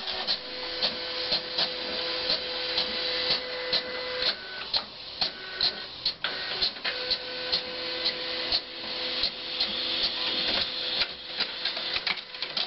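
Flatbed scanner running: its motor whines in steady tones that break off and restart, over regular clicks at about two to three a second.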